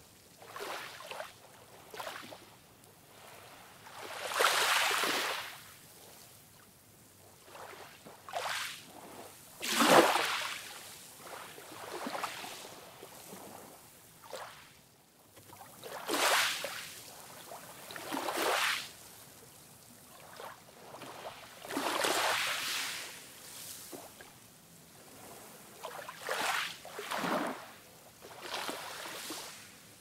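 Small ocean waves breaking and washing up a sandy beach, a soft surge of surf every few seconds, the loudest about ten seconds in.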